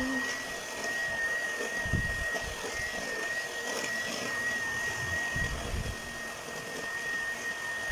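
Electric hand mixer running steadily with a thin high motor whine, its beaters churning batter in a stainless steel bowl, with a few dull knocks, the loudest about two seconds in.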